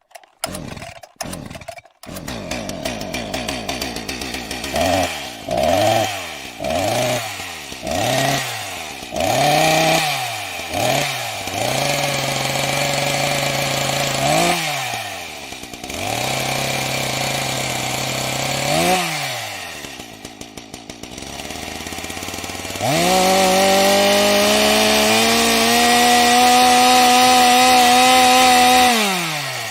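Chainsaw engine: a few short bursts at the start, then idling and revved in quick blips about once a second, with some held revs. Near the end it runs at a long steady high rev, then drops back.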